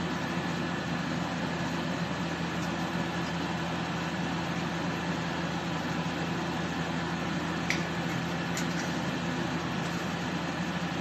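Steady mechanical whirring hiss with a low hum underneath, and two faint clicks near the end.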